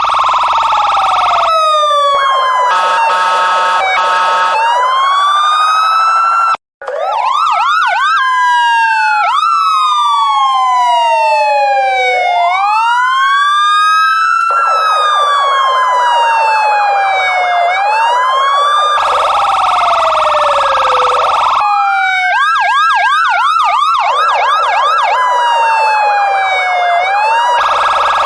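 Police siren cycling through its tones: slow rising-and-falling wails, stretches of rapid yelp, and short rising whoops. A brief cut-out comes about six and a half seconds in.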